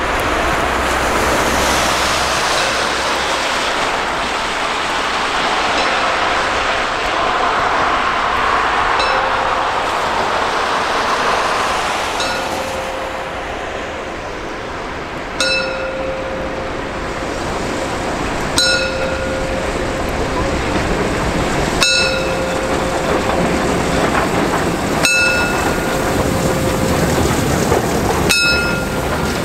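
DR class 52 2-10-0 steam locomotive 52 8154 pulling a passenger train past, a loud steady noise of the running engine and train. From about halfway a sharp, ringing metallic click repeats about every three seconds.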